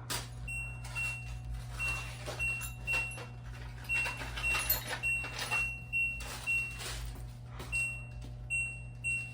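LG washing machine's control panel beeping as its wash-cycle selection is stepped through: a string of short, identical high beeps, one or two a second with a pause or two, each with a light click.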